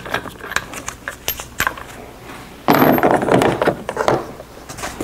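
Air impact wrench running in one loud burst of about two seconds, starting suddenly near the middle, as the lug nuts come off a rear wheel. Before it come a few light clinks and knocks of tools being handled.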